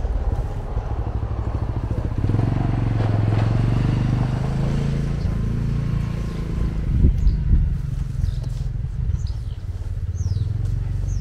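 Motorcycle engine idling with a steady low hum, a few thumps about two-thirds of the way through, and short bird chirps near the end.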